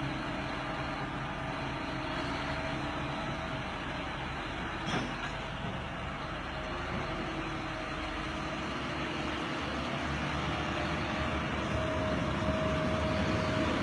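Case IH articulated four-wheel-drive tractor's diesel engine running steadily under heavy load while towing a stuck tractor and planter. It grows a little louder toward the end, with one brief knock about five seconds in.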